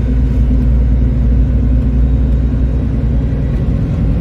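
Road train's diesel engine running steadily under way, a low even rumble heard from inside the truck's cab.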